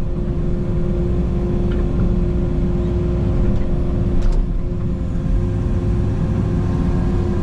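Takeuchi TB290 mini excavator's diesel engine running hard with a steady hydraulic whine, the machine straining at its limit against a large boulder.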